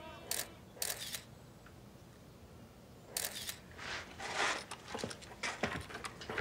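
Camera shutter clicking repeatedly as photographs are taken: two sharp clicks in the first second, then a run of further clicks in the second half.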